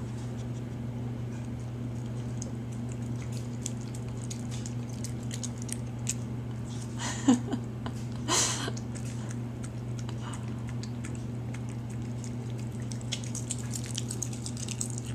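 Small dog chewing and munching salad greens from a bowl: many small wet, crunchy clicks over a steady low hum. Two short, louder noises come about seven and eight and a half seconds in.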